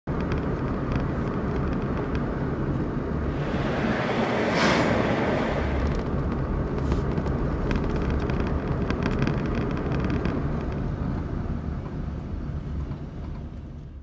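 Car driving along a paved road, heard from inside the cabin: a steady engine and road rumble. About four to five seconds in, a louder rush of air swells and fades.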